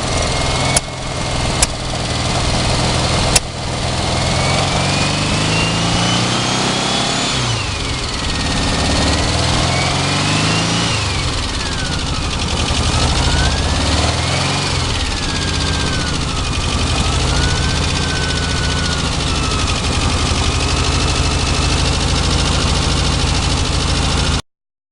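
A big engine just started, running with a few sharp bangs in the first few seconds, then revving up and down several times with a whine that rises and falls with it. It cuts off suddenly near the end.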